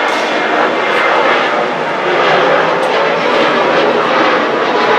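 Boeing 737 airliner climbing out after takeoff, its twin jet engines at climb power: a loud, steady rush of jet noise that grows slightly louder toward the end.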